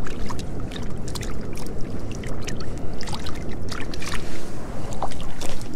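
Water rushing steadily at a warm-water outflow, with scattered small splashes and clicks close by.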